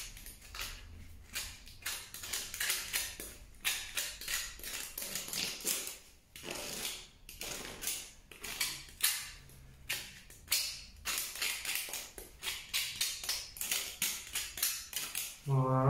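A hand deburring tool scraping the freshly cut edge of a black plastic pipe: short rasping strokes, two or three a second, with brief pauses between runs.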